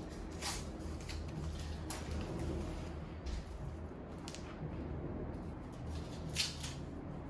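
Plastic packaging and a faux-leather Telfar shopping bag rustling and crinkling as they are handled and unfolded, in a handful of short crinkles.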